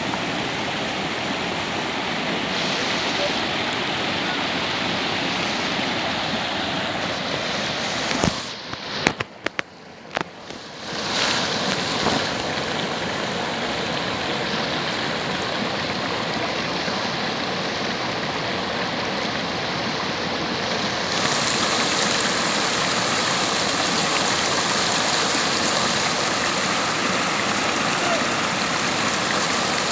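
Stream water rushing steadily over a waterfall. About 8 seconds in, the sound drops away for a couple of seconds with a few sharp knocks, then returns, and from about 21 seconds it is louder and brighter.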